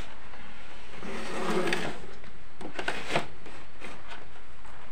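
Plastic rear cover of an old Sharp CRT television being pulled off its cabinet: rubbing and scraping, then a quick run of sharp clicks and knocks about three seconds in.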